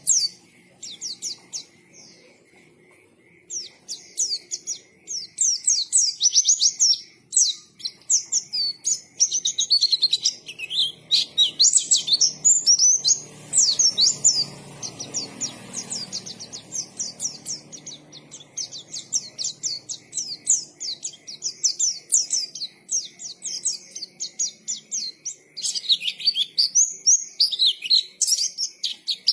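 White-eye (pleci) singing a rapid, almost unbroken twittering song of short high chirps and quick up-and-down notes, after a brief pause about a second in.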